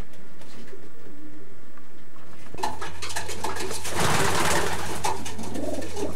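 Racing pigeons cooing in their loft. A steady low hum comes in about two and a half seconds in, and there is a brief burst of rustling around four seconds in.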